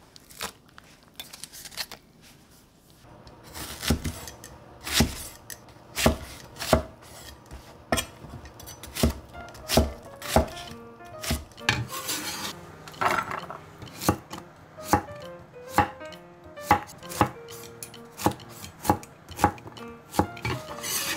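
Broad-bladed kitchen knife chopping onion and squash on an end-grain wooden cutting board: a steady run of sharp knocks, about two a second, starting about three seconds in.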